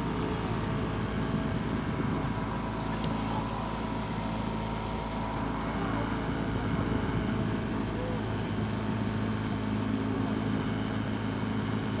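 Small motorboat's engine running steadily, a constant hum.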